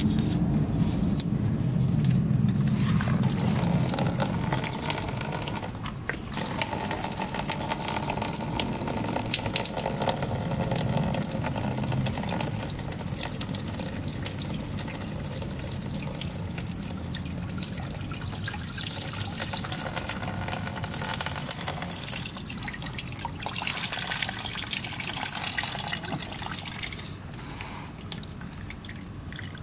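Engine coolant pouring in a steady stream from the opened coolant drain bolt of a 2006 Yamaha YFZ450's engine. The pour is strongest at first, then thins and quiets to a trickle near the end as the cooling system empties.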